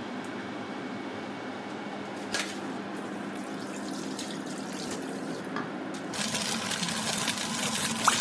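Eggs frying in a square pan on a hob: a steady low hum at first, one knock a couple of seconds in, then the sizzle swells sharply about six seconds in, with small crackles.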